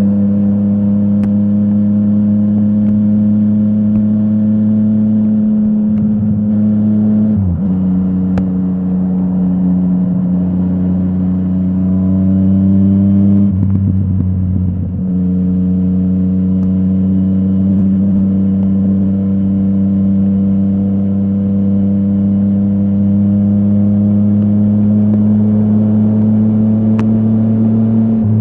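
Yamaha MT-09 crossplane three-cylinder engine running through a full Akrapovic exhaust while riding at a steady pace. The pitch drops sharply about seven seconds in, as at a gear change, and dips roughly again around fourteen seconds. After that it holds a steady note that creeps slowly upward.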